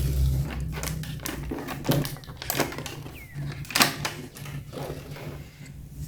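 Plastic toy packaging and parts being handled: irregular crinkles, clicks and taps, with two louder snaps a little after halfway and about four seconds in.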